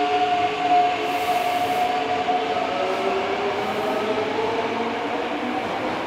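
The Mitsubishi late-type GTO-VVVF inverter and traction motors of a Yokohama Municipal Subway 3000A-series train, whining as it pulls away. The whine is several steady tones at once, and the lower tones glide upward partway through as the train gathers speed, over the rumble of the running train.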